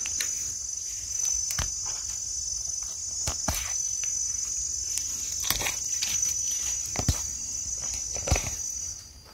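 Steady high-pitched insect drone, typical of crickets or cicadas, falling away near the end. Over it come scattered light clicks and knocks from handling and movement; the strongest knock, about eight seconds in, comes as a hand grips the mushrooms on the bark.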